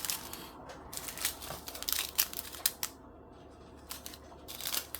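Small plastic bags of diamond-painting drills being handled, crinkling with sharp little clicks and rattles. There is a quieter stretch about three seconds in before the handling picks up again near the end.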